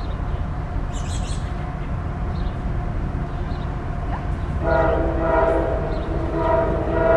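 CSX freight locomotive's air horn, still out of sight, sounding a chord in several blasts from a little past halfway, over a steady low rumble.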